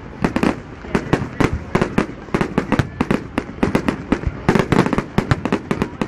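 Fireworks going off in quick succession: an irregular run of sharp bangs and crackles, several a second.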